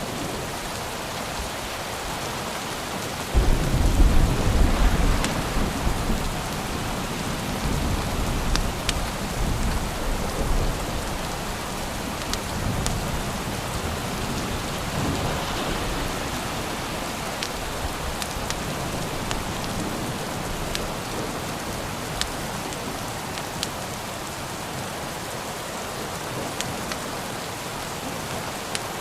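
Steady rainfall with a roll of thunder that breaks in suddenly about three seconds in, rumbling deep and fading away over several seconds. Scattered sharp clicks sound through the rain.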